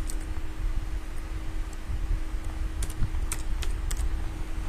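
Keystrokes on a computer keyboard typing the digits of a date: one click right at the start, then a quick run of about four around three seconds in. A steady low hum sits underneath.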